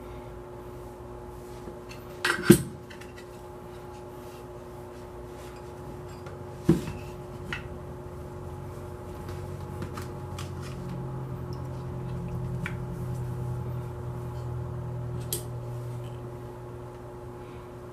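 Metal AR-15 parts clinking and knocking as they are handled on a towel and wiped with a rag. There are two sharp knocks, the louder a couple of seconds in and another near seven seconds, plus a few lighter ticks and a steady hum in the background.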